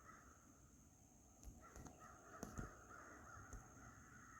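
Near silence in the woods: a faint steady high drone with a faint band of calls beneath it, plausibly distant crows cawing, and a few soft clicks around the middle.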